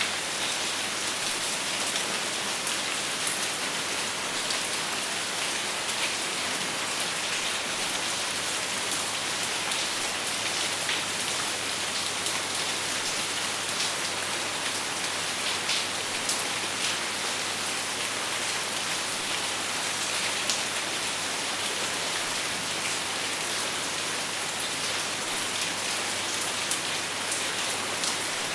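Steady rain falling, an even hiss with individual drops pattering, and no thunder.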